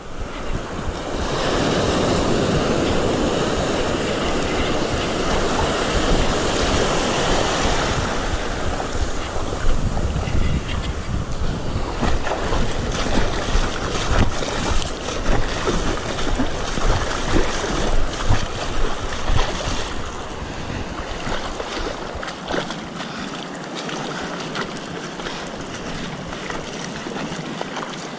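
Sea surf washing in on the shore, with wind buffeting the microphone and the noise rising and falling unevenly.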